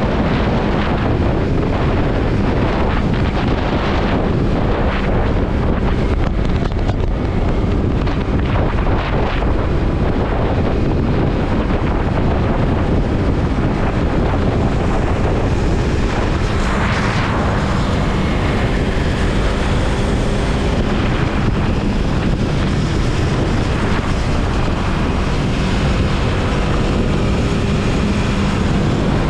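Yamaha MT-03 motorcycle riding at a steady speed: the engine's drone runs under heavy wind noise buffeting the microphone.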